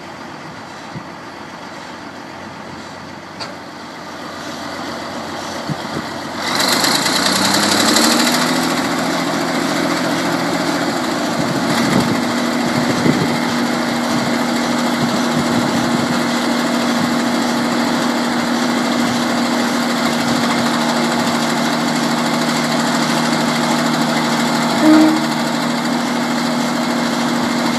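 Large diesel engine of a Maxigrind 425 horizontal grinder, a 425 hp CAT 3406, running low at first, then throttling up about six seconds in: it gets suddenly louder and its pitch rises over a couple of seconds, then holds a steady, louder high-rpm run.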